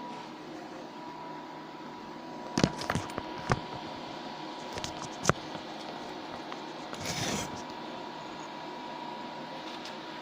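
Sharp metallic clicks and taps of a crucible and metal mould being handled while molten solder is poured: a cluster of clicks about two and a half seconds in, one sharp tap about five seconds in, and a brief scraping rustle near seven seconds, over a steady faint hum with a thin whine.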